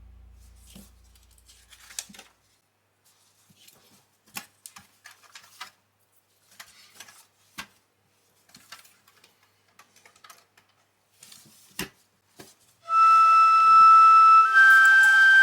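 Sparse clicks and taps of plastic Lego pieces being handled and pressed together. About thirteen seconds in, louder flute-like music of held notes, stepping up in pitch, comes in.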